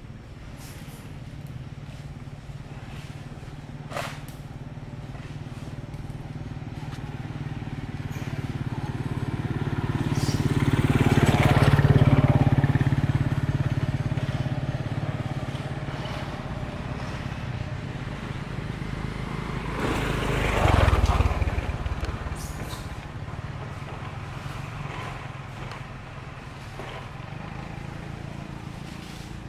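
Motor vehicle engine passing by: a low steady hum that slowly swells to a peak near the middle and fades away, then a second, shorter pass about two-thirds of the way through.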